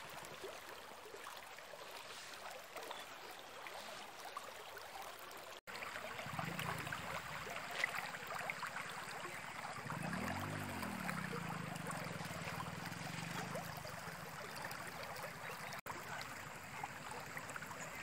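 Shallow river water flowing over a stony bed: a steady rush and gurgle, louder from about five seconds in. A faint low hum rises and falls about ten seconds in.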